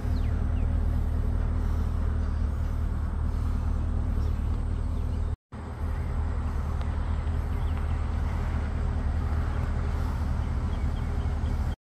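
Flatbed truck's engine idling with a steady low drone.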